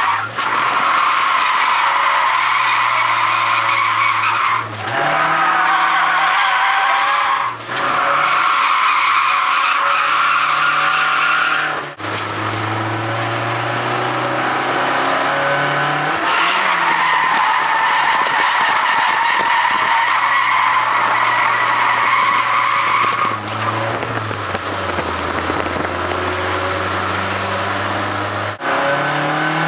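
Nissan 240SX engine running hard and revving up and down, with the tyres squealing as the car slides through corners, heard from inside the cabin. The engine note drops briefly several times, as the revs fall between pulls.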